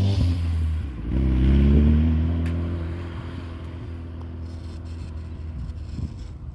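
GBS Zero open-wheeled kit car's engine accelerating past and away: the engine note dips about a second in, rises in pitch, then fades steadily as the car drives off into the distance.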